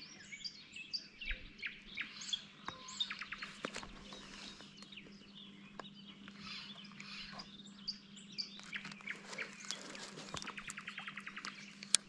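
Small songbirds chirping and singing, with a few rapid trills, over a faint steady low hum. There is a sharp click near the end.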